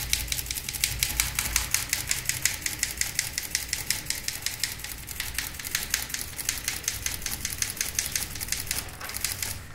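Manual typewriter being typed in a fast, steady run of keystrokes, the typebars striking in quick succession to build up an image out of typed characters. The run stops near the end.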